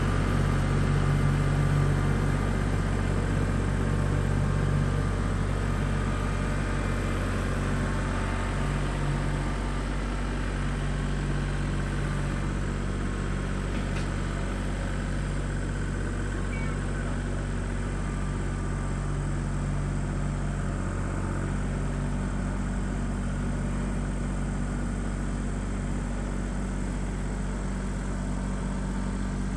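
Tractor engine running steadily, a little louder in the first few seconds and then settling to an even level.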